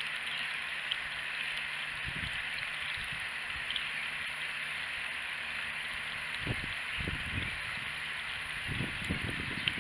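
Water running from a garden hose into a plastic watering can, a steady trickling splash, with a few soft low thumps here and there, more of them near the end.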